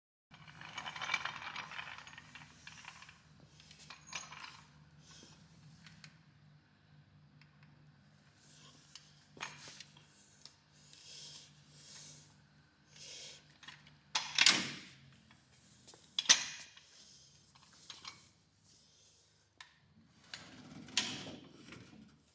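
Metal parts clinking and knocking as they are handled, with several sharp metallic knocks, the loudest about two-thirds of the way through, over a faint steady low hum that stops at that knock.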